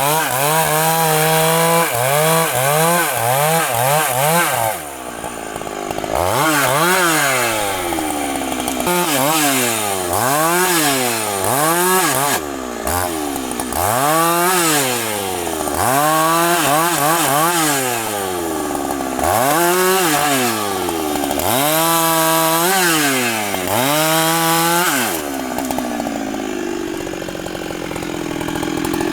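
Large two-stroke Husqvarna chainsaw cutting into a big tree trunk, its engine note rising and falling over and over, about once every two seconds.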